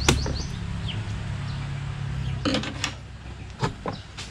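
A sharp snip as the tie on a hard plastic tool case's handle is cut, then several short clicks and knocks as the plastic case is handled and tipped, over a low rumble in the first half.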